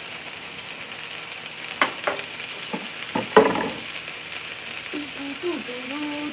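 Food sizzling steadily as it fries in a pan, with a few sharp knocks and clinks of kitchen utensils two to three and a half seconds in.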